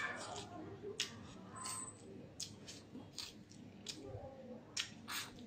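Wooden chopsticks clicking and scraping against a porcelain rice bowl at irregular intervals, with the chewing and mouth sounds of someone eating.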